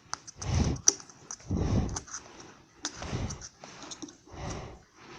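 Damaged Technics three-way speaker with pushed-in woofer cones giving out a test sound: four rough, noisy bursts with a low rumble, a second or so apart, with sharp clicks in between.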